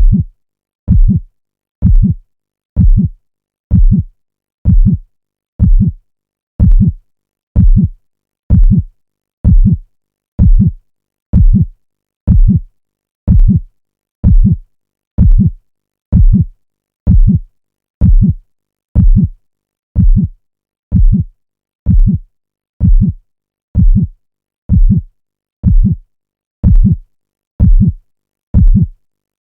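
Dramatic heartbeat sound effect: a steady, deep lub-dub double thud about once a second, with silence between beats.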